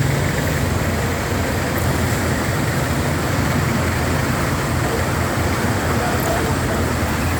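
Steady rushing roar of fast-flowing floodwater, with a low rumble underneath.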